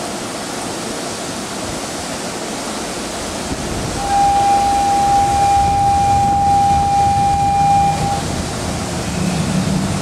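Station ambience with a standing electric train's steady hum. About four seconds in, a platform departure buzzer sounds one steady high tone for about four seconds and then cuts off, the signal that the train is about to depart.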